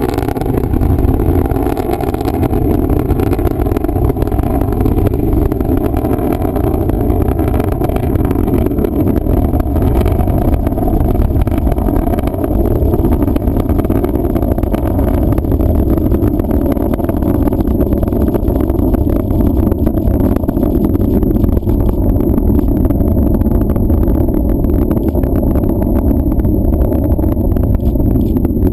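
Falcon 9 rocket's nine Merlin 1D engines during ascent: a loud, continuous rumbling roar with crackle, growing duller toward the end as the rocket climbs away.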